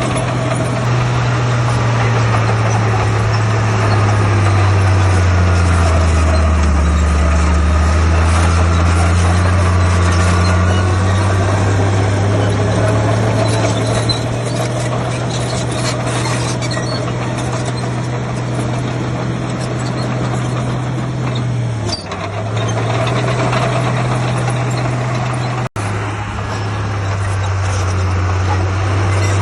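Heavy diesel engine of earthmoving machinery running, its pitch dropping for several seconds as it is pulled down under load, then recovering. A brief dip near the end and a momentary cut-out a few seconds before the end.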